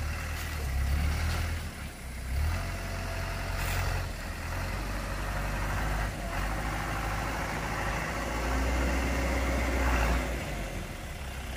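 Small truck's engine running, the engine note swelling and easing several times as the truck is held up by a tree root in its path.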